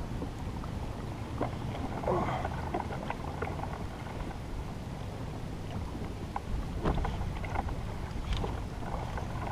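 Water lapping and splashing against a fishing kayak's hull on choppy open ocean, over a steady low rumble of wind on the microphone, with a few light knocks scattered through.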